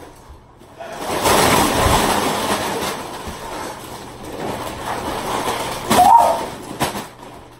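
Doritos tortilla chips pouring out of an upturned cardboard box and a shaken bag onto a person, a rush of rustling noise that starts about a second in and tapers off, with a short louder burst about six seconds in.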